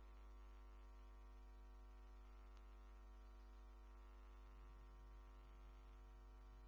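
Near silence with a faint steady electrical hum.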